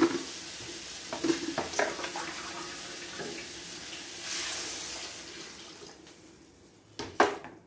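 Curry frying in a pan, with utensil clinks over the first couple of seconds. About four seconds in, water poured from a mug into the hot pan hisses, then the sizzle dies down as the curry becomes gravy. Two sharp knocks come near the end.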